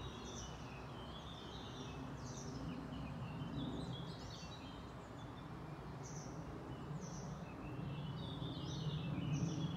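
Songbirds singing in trees: many short, high chirps and phrases, busiest about two to four seconds in and again near the end, over a steady outdoor background noise.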